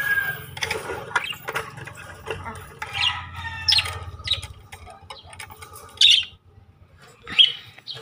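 Pet budgerigars giving several short, sharp chirps and fluttering in a wire cage. Light clicks and rattles come from the cage wire as a wooden nest box is unhooked and handled.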